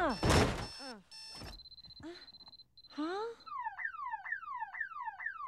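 A loud thump, then one long, steady electronic beep, then a warbling car-alarm siren sweeping up and down about three times a second.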